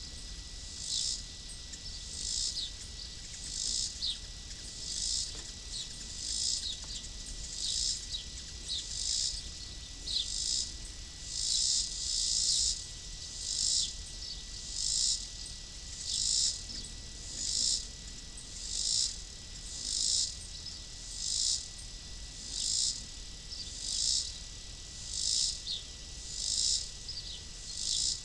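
A calling insect: a high, raspy pulse repeated evenly about once every second and a half, over a faint steady high whine.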